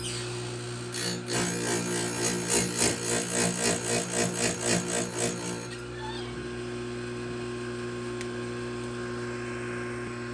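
Oregon bench chain grinder's motor running steadily. About a second in, the grinding stone cuts a chainsaw chain tooth for a few seconds with a pulsing rasp about three times a second. Then the motor runs on alone.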